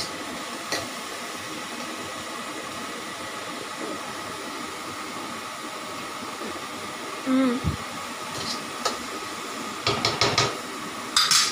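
Steady hiss of a cucumber and coconut mixture frying in a metal wok on a gas burner. A steel ladle scrapes and clinks against the wok in quick strokes about ten seconds in, and again more loudly near the end.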